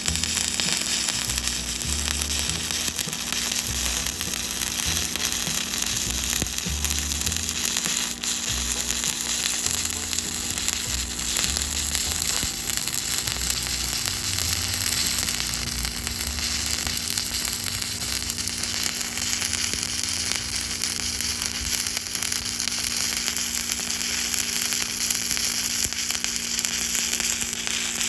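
Stick (arc) welding on steel plate: the electrode arc burns with a steady crackling sizzle, unbroken throughout, over a low steady hum.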